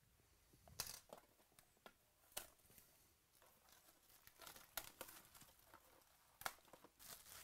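Plastic shrink-wrap being torn and crinkled off a sealed box of football trading cards, in several short, sharp rips with crackling between them.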